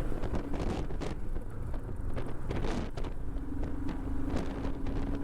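Low rumble of a Royal Enfield Himalayan's single-cylinder engine with wind buffeting the microphone, and a steady hum coming in about three seconds in.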